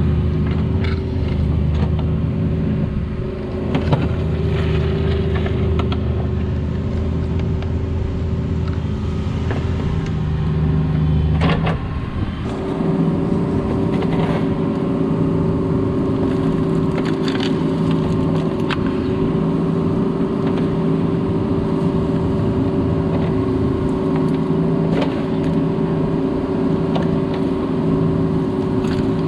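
Cat 304 mini excavator's diesel engine running under hydraulic load while digging, with a few sharp knocks. Its note changes about twelve seconds in.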